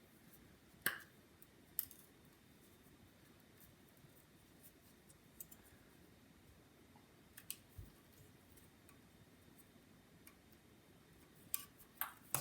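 Scattered small clicks and taps of laptop parts being handled and fitted: a hard drive going into its enclosure and bracket in an original MacBook Air. The clicks are sparse, with a few near the end.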